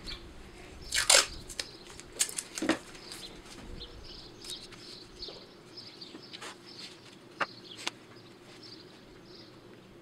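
Light knocks and clicks of small wooden frame pieces being handled, folded together and set down on a paper-covered workbench, the loudest about a second in and a few more between two and three seconds in. A faint steady hum runs underneath.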